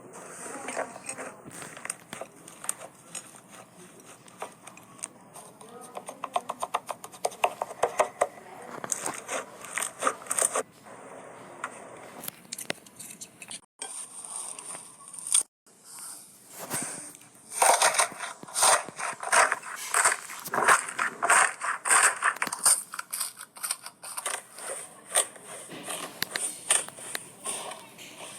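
Slime being squished and poked by hand, giving rapid crackling clicks and small wet pops, busier and louder in the second half.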